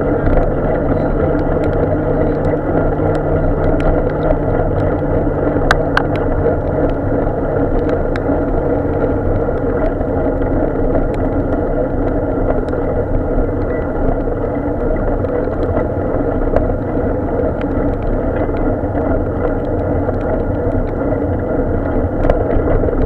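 Steady rumbling road and wind noise from a bicycle-mounted camera riding along a wet road, with a sharp click about six seconds in.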